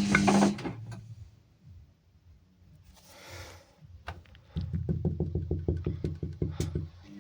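Washing machine running mechanically: a soft hiss, then a fast, even run of ticks over a low hum lasting about two and a half seconds.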